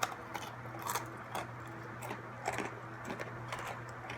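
Hard pretzels being crunched and chewed close to the microphone, a string of irregular crisp cracks about every half second. A steady low hum runs underneath.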